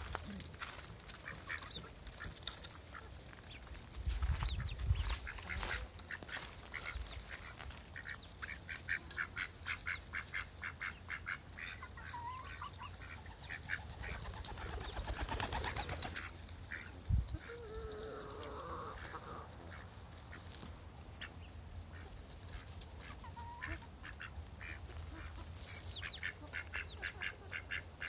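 Backyard poultry at feed: ducks quacking and chickens calling, some calls in quick even runs of short notes. There is a brief low rumble about four seconds in.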